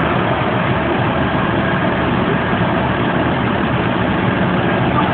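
Heavy vehicle engine idling steadily.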